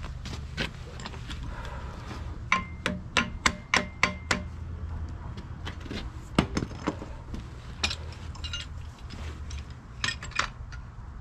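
Light metallic taps and clinks from clamps being handled and fitted onto a steel axle tube: a quick run of about a dozen ringing clicks a few seconds in, then a few scattered ones.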